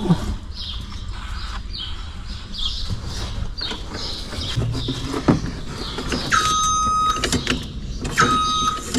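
Skid steer backup alarm beeping twice in the second half, each beep about a second long on one steady pitch, over the low steady running of the Bobcat 773's engine. Short chirps repeat in the first half.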